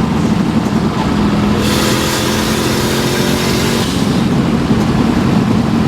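Subaru Impreza WRX rally car's turbocharged flat-four engine running hard at speed, heard from inside the car. A steady higher note and a loud hiss come in about one and a half seconds in and drop away about two seconds later.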